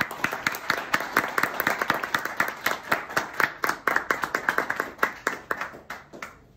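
A small group of people clapping, thinning out and stopping about six seconds in.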